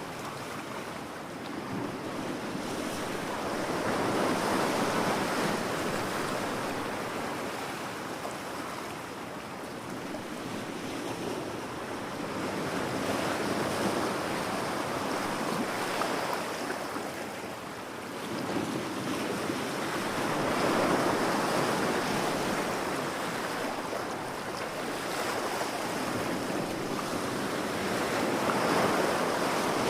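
Ocean waves washing ashore as a continuous surf noise that swells and ebbs, breaking several times.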